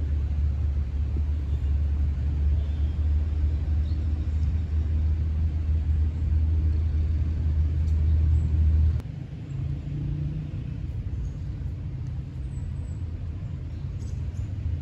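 Wind buffeting the microphone during a bike ride: a loud low rumble that drops off suddenly about nine seconds in, leaving a quieter outdoor background.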